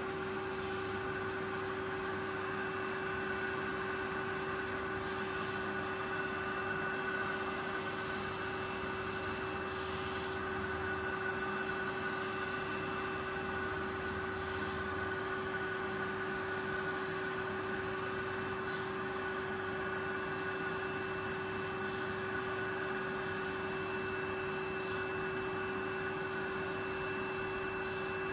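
Vacuum cleaner motor running steadily with a hum and a higher whine, drawing air through a small brush nozzle passed over embroidered fabric, the air rush swelling faintly every few seconds.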